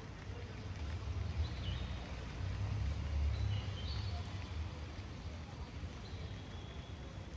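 Open-air rooftop ambience: a steady low rumble with a few faint, high bird whistles, one falling about one and a half seconds in, a pair around three to four seconds, and a long thin one near the end.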